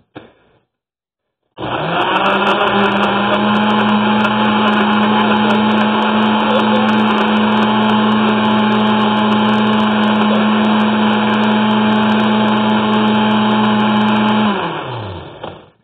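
Countertop blender motor starting abruptly and running at a steady high speed, then switched off near the end and spinning down with a falling pitch.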